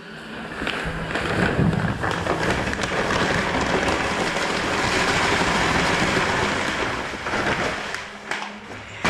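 Dry ready-mixed sand-cement mortar pouring out of a bag into a mixing tub: a steady rushing hiss that builds up about a second in and tails off near the end.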